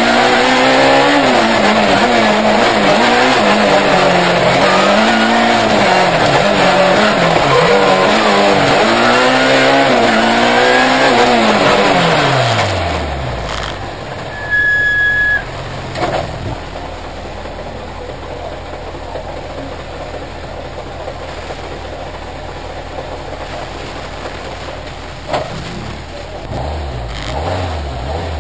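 Peugeot 306 Maxi rally car's four-cylinder engine heard from inside the cabin, revving hard up and down through the gears, then winding down to a steady idle as the car comes to a stop. A short high beep sounds about halfway through, and near the end the engine is revved again.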